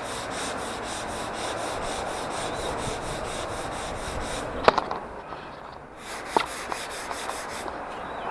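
Dried plaster filler being hand-sanded overhead with a sanding pad: quick, even back-and-forth rubbing strokes. A little past halfway they pause briefly, broken by a couple of sharp knocks, then the sanding picks up again.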